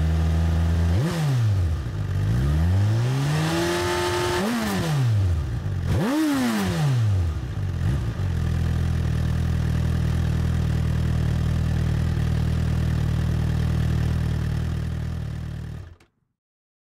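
Suzuki GSX-R1000's inline-four engine heard through its stock twin mufflers, idling and then revved in three throttle blips, the second a slower, longer climb, before settling back to a steady idle. The sound cuts off suddenly near the end.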